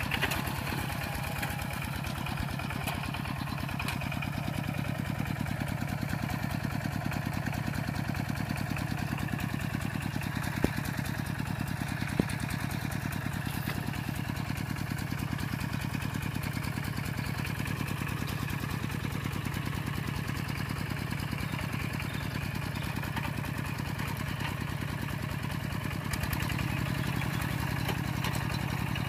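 Kubota RT120 two-wheel walking tractor's single-cylinder diesel engine running steadily with an even, rapid beat. Two sharp knocks come about ten and twelve seconds in, and the engine gets a little louder near the end.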